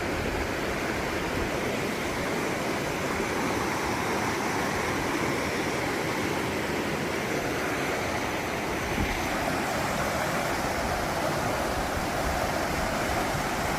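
River water flowing with a steady, even rushing noise.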